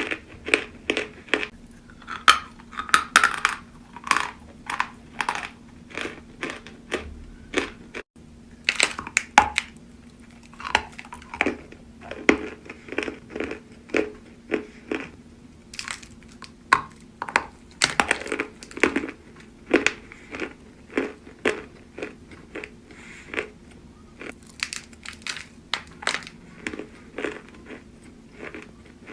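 Close-up crunching of natural white chalk being bitten and chewed, a quick run of crisp, dry crunches one after another.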